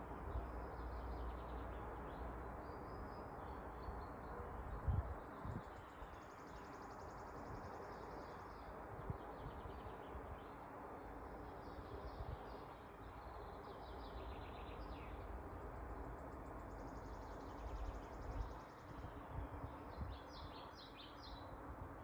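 Several small songbirds singing in spring woodland, many short high chirps and twitters, with one bird repeating a high trilled phrase twice, over a steady background hiss. A brief low thump about five seconds in.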